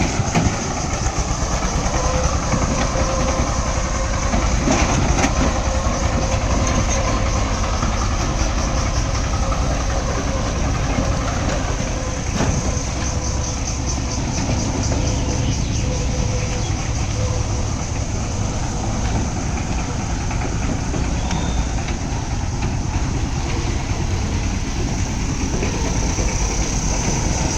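Engine of a motorised plough running steadily, with a rapid, even pulse.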